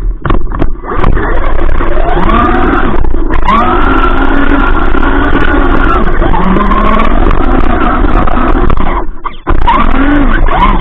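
Traxxas RC car's motor, heard through the car's own onboard camera, whining up and down in pitch as the car speeds up, holds speed and slows, several times over. Under it runs a loud, distorted rumble of the car running over the snow.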